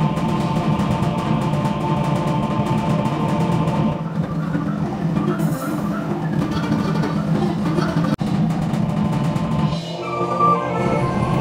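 Show music led by a drum ensemble playing fast rolls and rhythms. The music breaks off for an instant about eight seconds in, and near the end gives way to held melodic notes.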